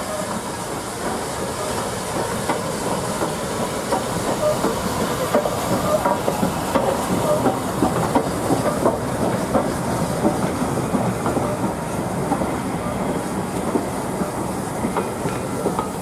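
A steam-hauled passenger train rolling slowly past behind S&DJR 7F 2-8-0 No. 53808. The coaches' wheels clatter and click over the rail joints with a steady rumble, loudest about halfway through as the coaches pass closest.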